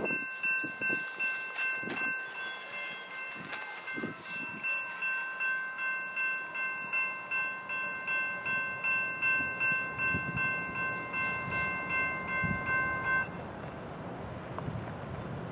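Railroad grade crossing bell ringing steadily at about two strokes a second, then stopping suddenly near the end.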